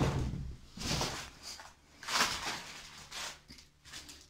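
Rustling and shuffling movement noises, several short swells about a second apart, over a faint steady low hum.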